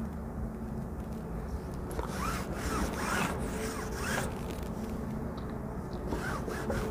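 Tailor's chalk scratching along the edge of a wooden ruler on shirt cloth, drawing a marking line in a run of quick strokes from about two seconds in, with a few more strokes near the end. A faint steady hum sits underneath.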